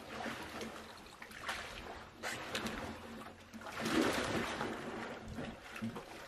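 Pool water sloshing and splashing around a kayak as the paddler leans out until it capsizes. The biggest splash comes about four seconds in, as he tips into the water.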